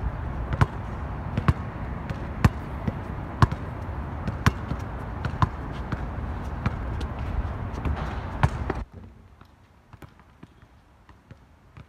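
A basketball bouncing on an outdoor hard court, sharp thuds about once a second as it is dribbled, over a steady rushing noise. The rushing stops abruptly about nine seconds in, leaving faint scattered taps.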